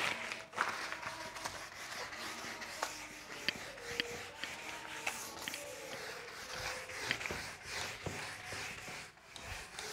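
Whiteboard duster rubbing across a whiteboard: a continuous scrubbing as writing is wiped off, with a few small knocks.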